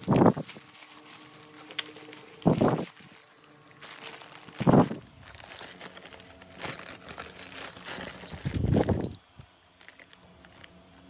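Plastic bubble wrap crinkling and rustling as it is unwrapped by hand, then a clear plastic zip bag crinkling as it is handled, with four loud rustles a couple of seconds apart.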